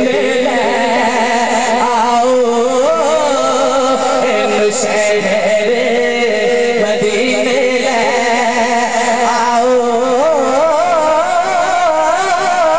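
A man singing a naat, a devotional song in praise of the Prophet Muhammad, in long drawn-out notes with wavering ornaments and no clear words, over a steady low drone.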